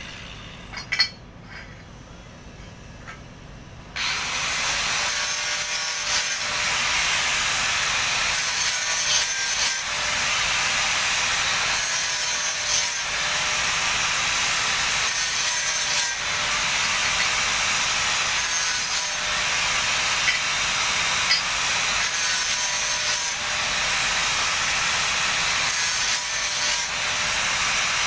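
Two sharp clicks about a second in, then from about four seconds an angle grinder grinding a steel padding plate, running on with brief dips as the disc is shifted across the metal.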